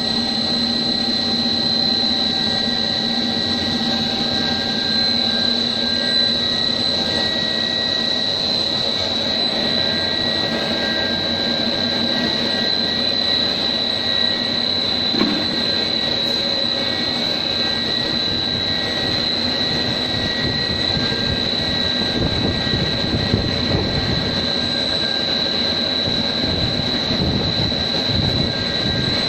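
Pet-chew extrusion line running: a steady machine drone with a constant high-pitched whine, growing rougher with more low rumble in the last several seconds.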